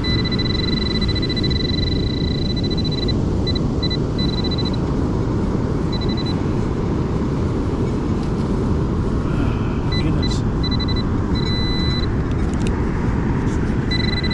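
A metal detector's high electronic target tone, held steady for about the first three seconds, then sounding in short on-off beeps while it is worked over buried coins. Under it runs a constant heavy low rumble of storm wind and surf on the microphone.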